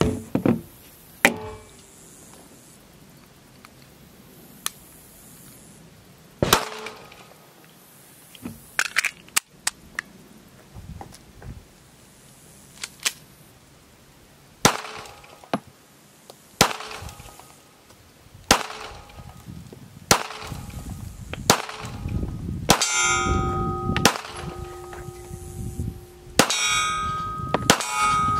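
A series of single pistol shots from a Ruger LCP Max .380, fired one at a time a second or two apart. In the last few seconds several shots are followed by a metallic ringing.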